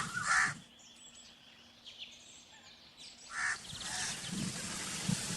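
Crow cawing: a short harsh caw at the start and another about three and a half seconds in. Faint high bird chirps sound in the quiet between them, and background noise rises near the end.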